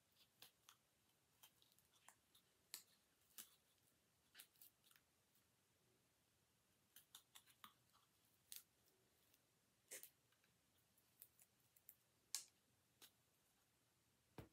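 Faint, irregular clicks and light taps from hands working with toothpicks and craft materials, against near silence.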